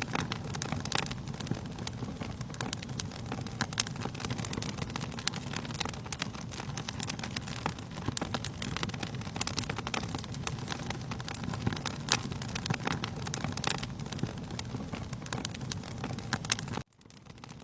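Wood fire crackling in a fireplace: irregular sharp pops over a steady low roar of the burning. The sound cuts out for about half a second near the end, then returns.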